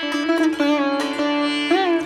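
Instrumental outro music: a plucked string melody with notes that bend in pitch, over a steady drone.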